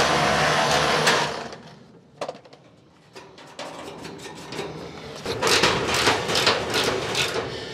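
Milwaukee M18 Fuel cordless rotary hammer drilling into a hard 32 MPa concrete slab, stopping and winding down about a second in. Then a single clunk, and near the end a run of light knocks and clicks, a few a second.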